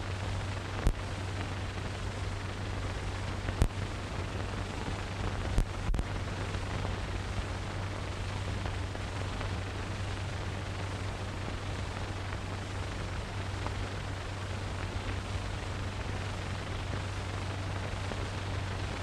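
Steady hiss and low hum of an old optical film soundtrack, with four sharp clicks in the first six seconds.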